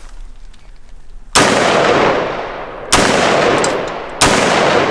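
AR-15 rifle firing .223/5.56 rounds: three single shots about a second and a half apart, each followed by a long echoing tail.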